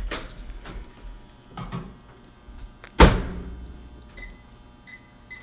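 Microwave oven door shut with a loud thud about three seconds in, after some lighter knocks of handling. Then three short electronic beeps from the microwave's keypad near the end, as it is set to run.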